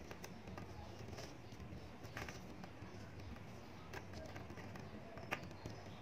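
Small magnetic balls clicking together and against a hard tabletop as they are snapped into rows by hand: a few scattered soft clicks, with one sharper click near the end, over a steady low background hum.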